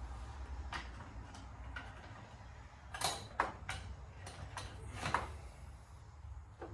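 Scattered light clicks and knocks, about ten over several seconds and loudest around the middle, from a chainsaw being handled while its engine is not running. A low steady hum lies underneath.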